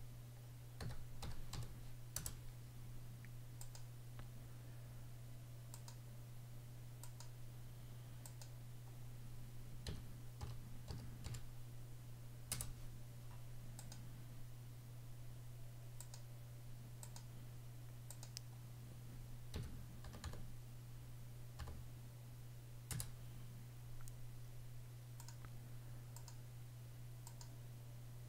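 Irregular, faint clicks of a computer mouse and keyboard while dimensions are placed in a CAD sketch, over a steady low hum.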